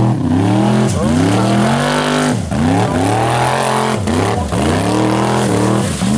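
Formula Offroad buggy's engine revving hard on a steep hill climb. The revs drop and sweep back up again about six times as the throttle is lifted and reopened.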